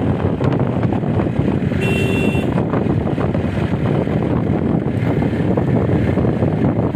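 Wind buffeting the microphone through the open window of a moving vehicle, over a steady rush of road and engine noise. A brief high tone of a few steady pitches sounds about two seconds in.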